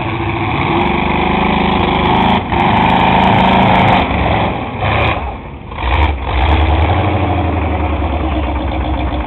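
Chevrolet pickup truck's engine revving hard as it drives through mud. It drops away briefly about five and a half seconds in, then comes back running lower and deeper.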